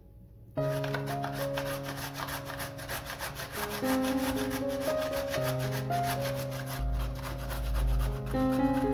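Carrot being grated on a stainless steel box grater: rapid, even rasping strokes, starting about half a second in, with soft background music underneath.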